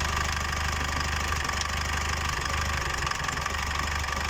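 Cummins 2.8 diesel in a Gazelle Next idling steadily with a slight, intermittent knock. The knock came from metal fragments in the cylinder battering the first piston.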